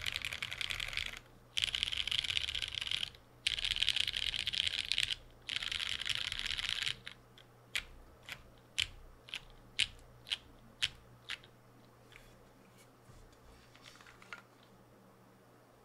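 Custom Moment 60% mechanical keyboard with lubed Butter Brown switches, a half-aluminium plate and GMK Striker keycaps, typed on fast in four dense bursts with short pauses between them. Then about ten single keystrokes, roughly two a second, followed by a few fainter taps.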